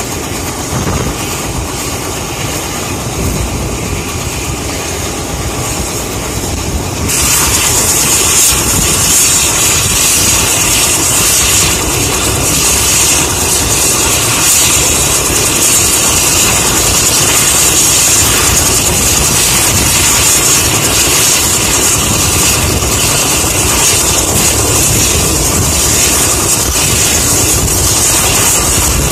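Mil Mi-8 helicopter's twin turboshaft engines and rotors running on the ground before take-off, a steady loud roar with rotor chop. About seven seconds in, a strong high turbine hiss comes in and the sound steps up louder, then holds steady.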